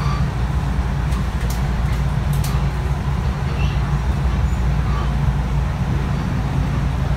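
Steady low rumble of a JR West 227 series 1000 electric train running along the line, heard from inside the passenger car, with a few light clicks between one and two and a half seconds in.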